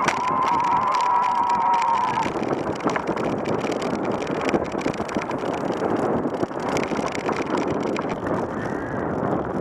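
Electric mountain bike with a Bosch Performance mid-drive motor riding through snow: a wavering motor whine for about the first two seconds, then a continuous rough rush of the plus-size tyres ploughing through the snow, with many small knocks and rattles from the bike.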